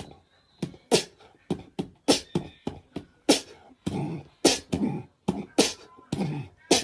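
A person beatboxing: sharp mouth-made kick and snare pops, about three a second, with a few short hummed notes in between.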